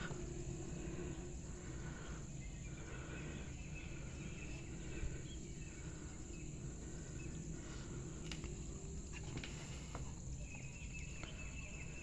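Faint outdoor ambience with insects chirping over a steady low background hum.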